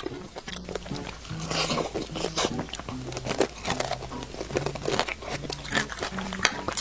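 Close-miked eating sounds: a person biting and chewing food, with irregular short crunchy clicks, over soft background music with a repeating note pattern.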